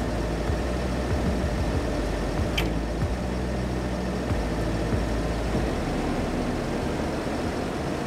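Heavy diesel engine idling steadily, with a slight waver in its note a few times, and one short sharp click about two and a half seconds in.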